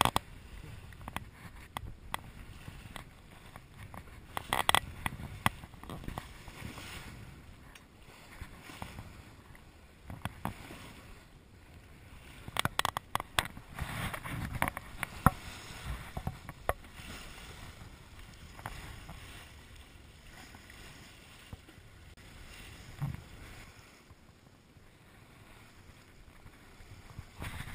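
Water sloshing and splashing against a sailing boat's hull as it moves through choppy water, with irregular sharp splashes and knocks, louder in clusters several times.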